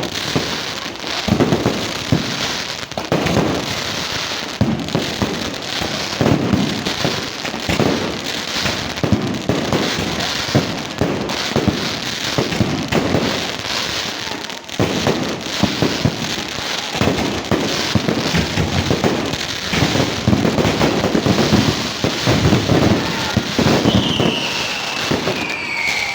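Fireworks display: a dense, continuous barrage of bangs and crackling bursts, with a falling whistle-like tone near the end.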